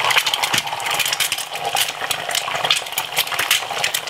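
Egg frying in hot oil in a non-stick frying pan: a steady sizzle full of rapid, irregular crackles and pops as the white bubbles and puffs up.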